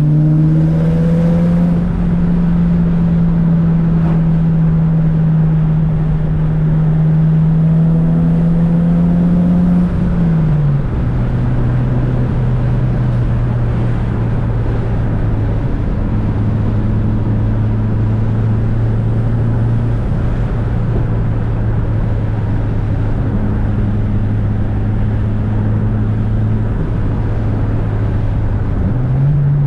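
Tuned Mitsubishi Lancer Evolution VIII's turbocharged 4G63 inline-four, making about 400 hp, running steadily under way. Its drone drops to a lower pitch about a third of the way through and climbs again near the end.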